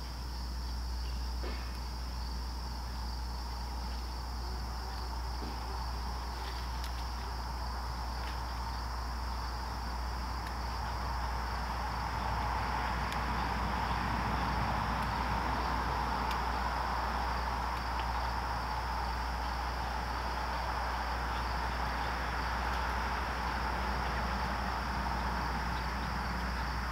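Late-summer evening chorus of crickets and other insects, a steady high-pitched trill, with a broader rushing noise that swells about halfway through over a low steady rumble.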